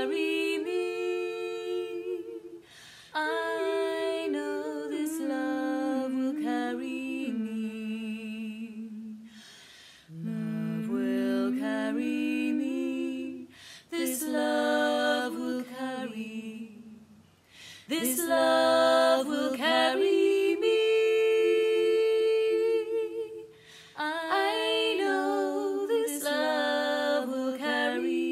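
A cappella harmony in three parts, all sung by one woman and layered over herself by multitrack recording. The voices move in held phrases of a few seconds each, with short breaks between them.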